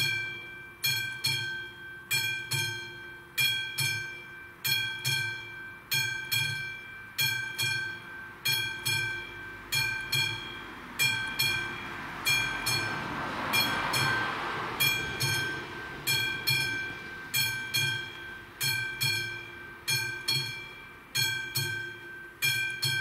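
Level-crossing warning bell ringing with steady repeated dings, about one and a half a second, as the crossing signals activate. Around the middle a rushing noise swells and fades beneath the bell.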